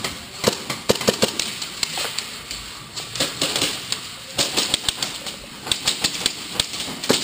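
Airsoft guns firing in quick strings of sharp cracks: a short burst about a second in, and a longer, denser flurry around the middle.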